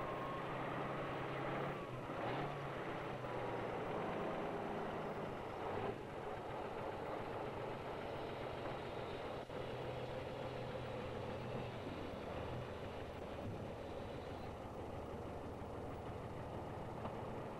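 Heavy off-road truck engine running under load as the truck crawls over steep, rough ground on a trial course. The revs rise and fall a few times.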